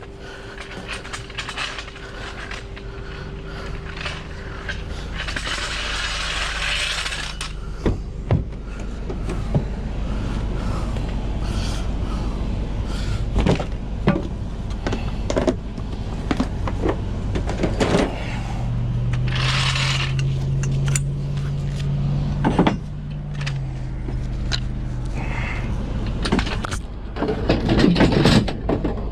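Steady low rumble of a running vehicle engine with scattered clanks and knocks of equipment being handled, and two stretches of hissing, one about five seconds in and one near the twentieth second.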